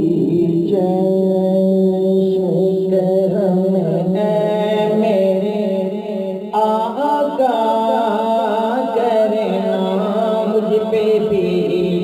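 Islamic background music: a chanted vocal melody over a steady low drone, moving into a new, more ornamented phrase a little past halfway.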